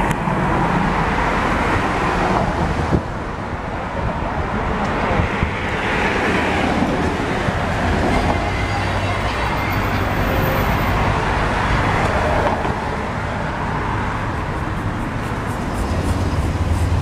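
Road traffic passing close by: a continuous rush of cars and their tyres going past, rising and falling as vehicles pass, with a louder engine passing near the end.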